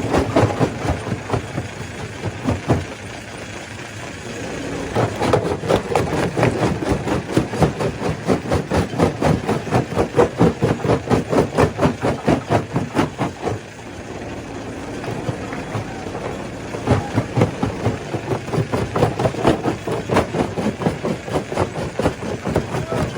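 Stone crusher machine running and crushing rock, with a regular rhythmic beat of about two to three strokes a second that eases off twice.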